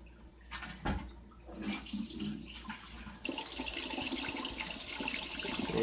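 Sink tap turned on about three seconds in, water then running steadily into the basin; a single knock comes earlier.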